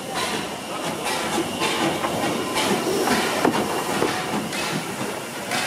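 Steam tank engine W24 Calbourne, an Adams O2 0-4-4T, on the move: a steady hiss of steam broken by uneven short chuffs from its exhaust.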